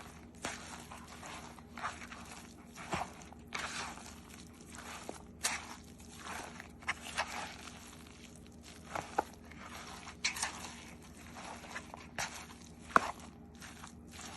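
Salmon patty mixture with breadcrumbs being stirred and mashed in a bowl: irregular scraping and squishing strokes.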